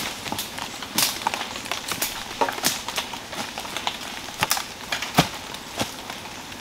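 Footsteps crunching on dry leaf litter and twigs, irregular steps about one to two a second, over a steady faint background hiss.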